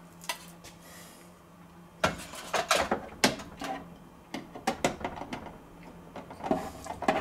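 Metal rotisserie spit clicking, clattering and scraping against the inside of an air fryer oven as a chicken on it is fitted into place. The knocks start about two seconds in and come as a run of short, irregular sharp clicks.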